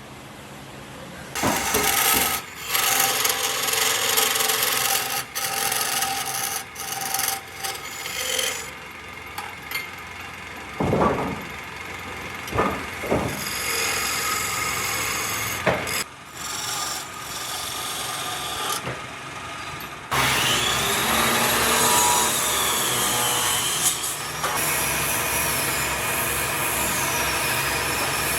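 Tools cutting, scraping and rasping on wood, in a string of short segments that change abruptly, with a few sharp knocks partway through and a wavering whine near the end.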